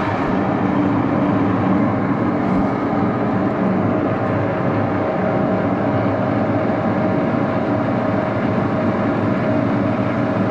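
Axelson engine lathe running steadily in reverse, its headstock gear train giving a constant, noisy gear sound. Run in reverse, the gears throw more oil up to the rear of the headstock.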